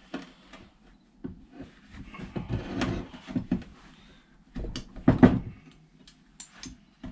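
Metal clicks, clanks and scrapes of a hand wrench working a seized, corroded bolt on an old gas-pump housing, with a louder clunk about five seconds in as he puts force on it.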